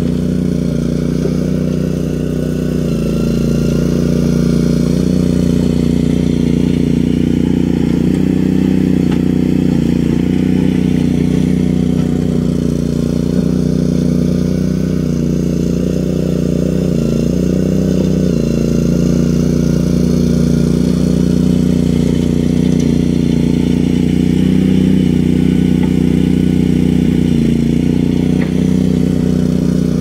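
Boxer 320 mini skid steer's engine running steadily close by, its pitch dipping briefly a few times, around the middle and again near the end.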